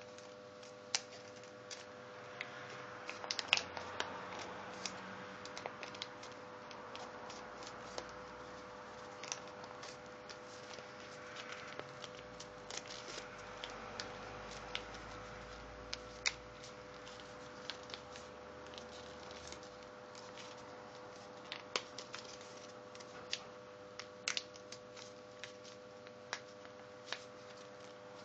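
A sheet of paper being folded and creased by hand, with scattered crinkles and sharp crackles at irregular moments. A faint steady hum runs underneath.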